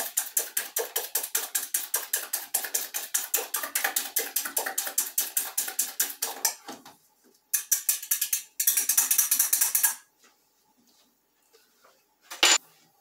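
Eggs being beaten by hand in a small stainless steel bowl: a fast, even clicking of the utensil against the bowl, about seven strokes a second, that breaks off, comes back in two quicker spurts and stops about ten seconds in. A single sharp clink near the end.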